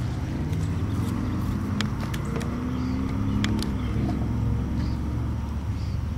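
A motor vehicle's engine running: a steady low hum whose pitch drifts slightly, with a few light clicks over it.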